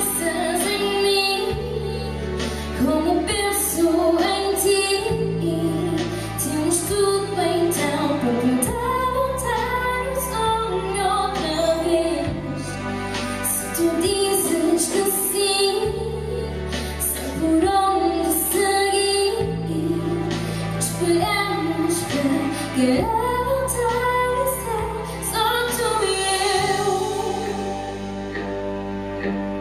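A woman singing a slow song live into a microphone, with held, gliding notes over sustained accompanying chords that change every few seconds.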